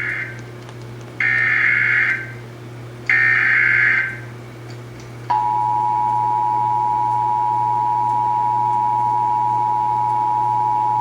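Emergency Alert System SAME header: the end of one digital data burst, then two more harsh, buzzy data bursts about two seconds apart. About five seconds in, the steady two-tone EAS attention signal (853 and 960 Hz) begins and holds.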